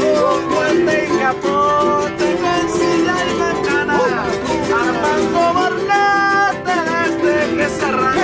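Son jarocho ensemble playing: jaranas strummed in a fast, driving rhythm with a requinto jarocho and guitarra cuarta, and a man's voice singing over them.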